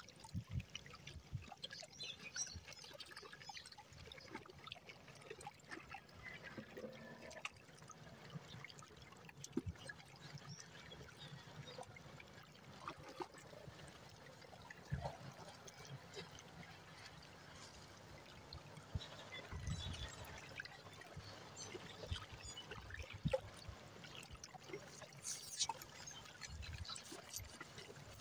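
Small sea waves lapping and trickling at the shoreline, faint, with scattered small splashes and a few low thumps.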